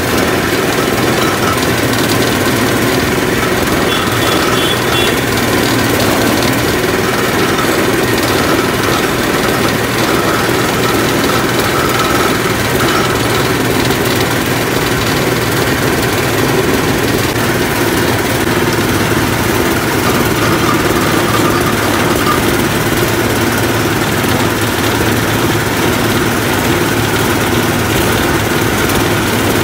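Motorized sugarcane juice press running steadily, its ridged rollers crushing cane stalks fed in by hand.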